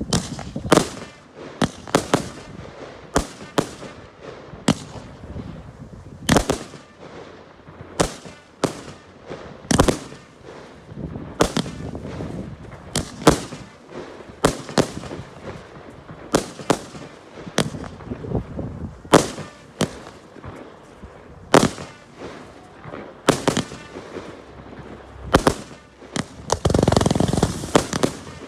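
Fireworks display: a long irregular series of sharp shell bursts, often one to three bangs a second, each with a short echoing tail. Near the end a dense, continuous burst of noise covers a second or two.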